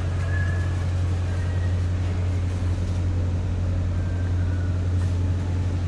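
Electric motor of a woodworking saw running freely with no wood being cut, a steady even hum.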